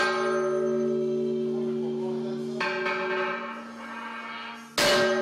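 Sledgehammer blows on the blade of a large bronze ship propeller, beating the blade back into shape. Each blow sets the propeller ringing like a bell for seconds: a lighter blow about halfway through and a heavy one near the end.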